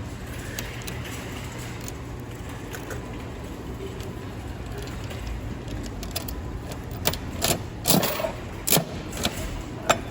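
Coin-operated capsule vending machine being worked over a steady low hum. From about seven seconds in come a run of sharp metallic clicks and clacks as coins go in and the crank is turned to release a prize.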